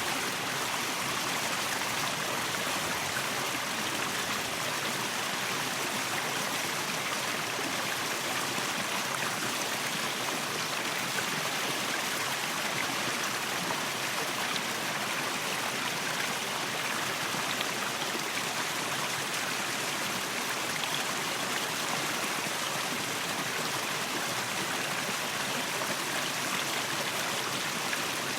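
Waterfall: water falling and splashing in a steady, even rush with a hissy, bright character.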